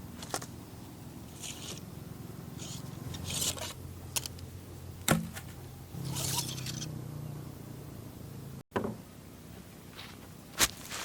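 Scattered scraping and rubbing sounds with a few sharp clicks and knocks, over a low steady hum: camping gear being handled.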